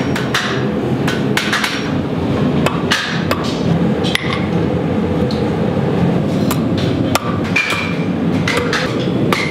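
Hand hammer striking hot steel on an anvil in uneven blows, some with a short metallic ring. Under them runs the steady roar of gas forge burners.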